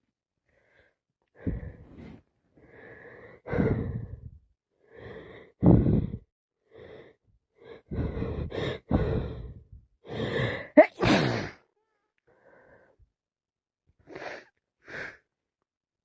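A woman sneezing repeatedly, a run of sharp sneezes and gasping in-breaths over about ten seconds, followed by two short faint breaths near the end.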